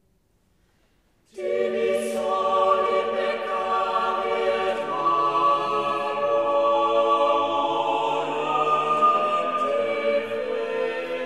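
Background music: a choir singing slow, sustained chords, starting suddenly about a second in after near silence.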